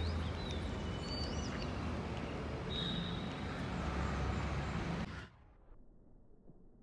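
Outdoor town ambience: a steady distant traffic rumble with small birds chirping, cutting off abruptly about five seconds in.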